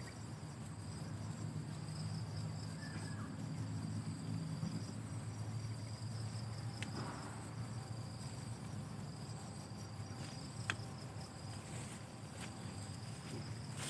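Insects chirring steadily, a high, even drone that holds throughout, over a low rumble, with a single sharp click about ten seconds in.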